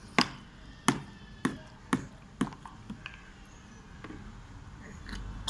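Sharp knocks of a hard plastic cup handled by a toddler, about six in a row roughly half a second apart, then a few fainter ones.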